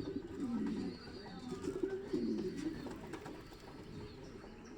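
Domestic pigeon cooing: two low coos in the first three seconds, then quieter.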